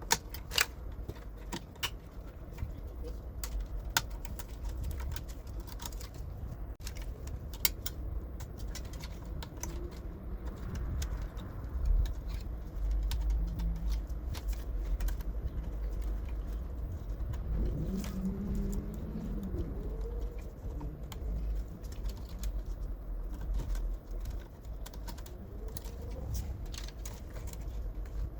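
Scattered light clicks and knocks of plastic and metal printer parts being handled and fitted back together during reassembly of a Kyocera laser printer, over a low steady hum.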